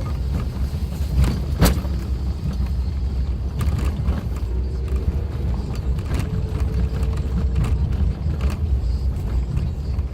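Suzuki Jimny driving along an unpaved forest road: a steady low rumble of engine and road noise, with knocks and rattles as it goes over bumps, the sharpest about a second and a half in.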